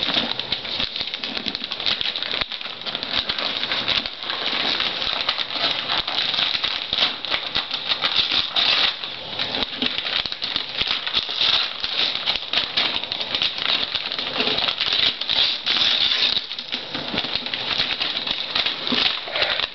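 Wrapping paper being torn and pulled off a gift box by hand: a dense, irregular crackling and rustling that goes on without a break.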